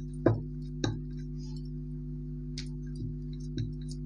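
Wooden rolling pin rolling out dough and knocking against the work surface: a few short sharp knocks, the loudest about a quarter second in, over a steady low hum.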